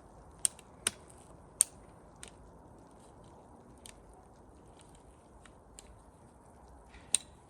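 My Garden Crazy ratchet pruner working through a thick branch in several ratcheting strokes: a handful of sharp, irregularly spaced clicks and snaps as the ratchet engages and the blade cuts into the wood, the loudest about a second and a half in and near the end.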